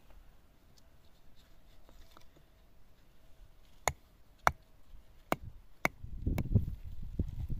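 Four sharp knocks a little over half a second apart, followed by a low rumbling noise near the end.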